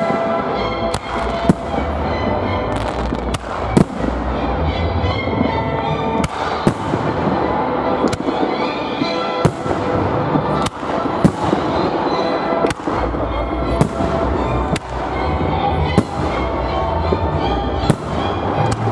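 Aerial firework shells bursting in a large display, a sharp boom about every second over a dense continuous din with music underneath.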